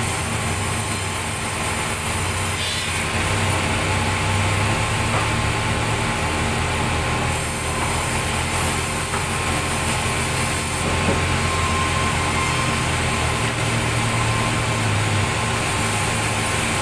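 Sawmill's large vertical band saw running steadily, with the drone and hum of its drive motor and blade.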